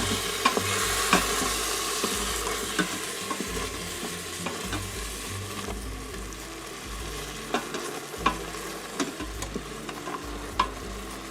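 A utensil stirring chicken, onions and milk in an Instant Pot's stainless steel inner pot on sauté mode, clicking and scraping against the pot at irregular intervals over a steady sizzle that gradually grows quieter.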